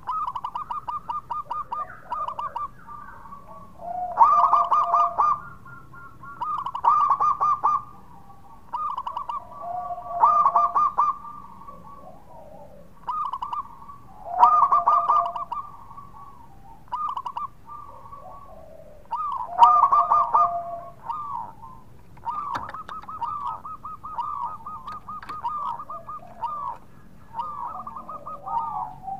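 Zebra dove (perkutut) cooing: runs of quick pulsed coos, with a louder phrase about every three to four seconds and a longer, softer run in the second half.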